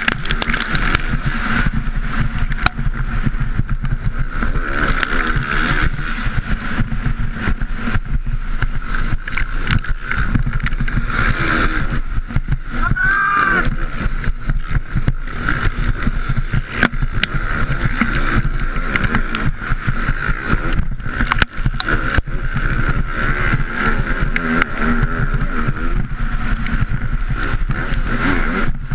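Motocross dirt bike engine running hard as it races over a rough dirt track, heard through a helmet-mounted camera, with frequent knocks. The engine pitch swings up and down about halfway through as the throttle is worked.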